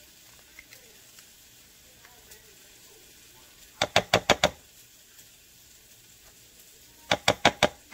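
A silicone spatula rapped quickly against the rim of a glass baking dish to knock ketchup off, in two quick runs of about five knocks each, the first a little before the middle and the second near the end.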